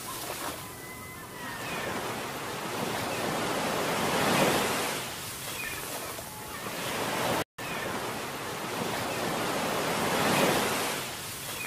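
Wind and water rushing past a boat moving along the shore, an even noise that swells louder twice. The sound drops out for an instant a little past halfway through.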